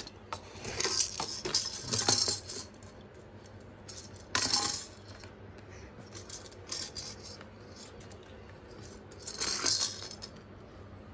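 A white perforated plastic basket being rattled and knocked about by a baby's hands: bursts of light plastic clattering and scraping, a cluster about a second in, a short burst about four seconds in, and another cluster near the end.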